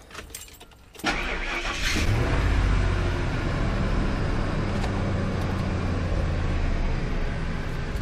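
Ford E250 van's Triton V8 started: about a second in it cranks and catches within a second, then settles into a steady idle.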